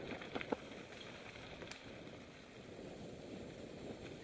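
Mountain bikes rolling over a dirt singletrack: steady tyre and trail noise with the rattle of the bike, and a few sharp clicks in the first two seconds.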